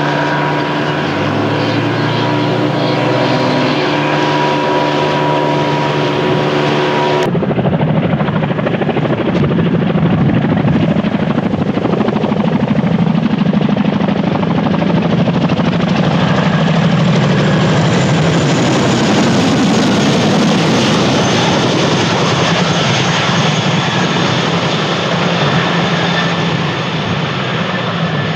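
An outboard motor on a military boat runs at speed, its pitch stepping up about a second in. About seven seconds in this cuts to a CH-47F Chinook tandem-rotor helicopter flying low, with fast rotor-blade chop and a faint high whine over it.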